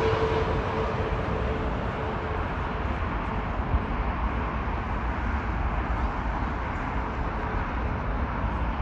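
Airbus A320neo's jet engines receding after landing: a fading engine whine that dies away within the first few seconds, leaving a steady noise over a low rumble.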